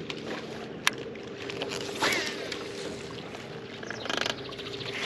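Skip cast with a baitcasting reel that ends in a backlash: a sharp click, a rush as the lure skips across a choppy surface, then a quick run of ticks from the reel, over a faint steady hum.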